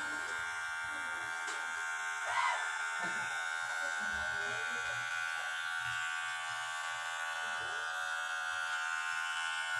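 Cordless hair clipper running with a steady buzz, with a brief louder sound about two and a half seconds in.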